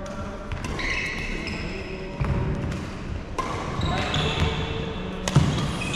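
Badminton rally on a wooden sports-hall court: sharp racket strikes on the shuttlecock, the loudest near the end, with footfalls on the floor and voices in the hall.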